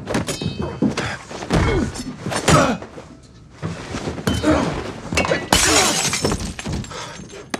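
Movie fight sound effects: a run of hits and thuds with grunts from the fighters, then glass smashing about five and a half seconds in, in a bar car lined with bottles.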